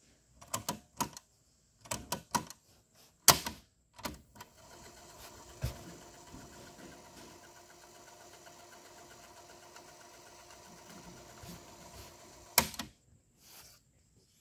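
Technics RS-T22 cassette deck's piano-key transport buttons clicking and clunking several times as they are pressed, then the Deck B tape mechanism running with a steady whir for about eight seconds, ending in one loud clack as it stops.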